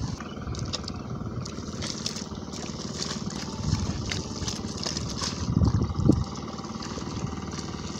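Wet mud and shallow water sloshing as a long-handled scraper is dragged through a flooded rice paddy, with two louder low rumbles near the middle.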